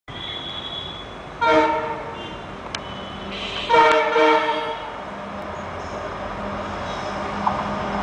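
Indian Railways WDG4 diesel locomotive's air horn sounding two blasts, a short one about a second and a half in and a longer one around four seconds, over the low rumble of the approaching locomotives, which grows toward the end.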